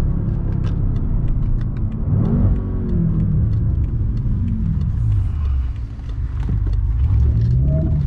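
BMW M5 F10's twin-turbo V8 under way, its note rising and falling as the car slows for a turn. It drops to a low note about six seconds in, then climbs again as the car pulls away out of the turn.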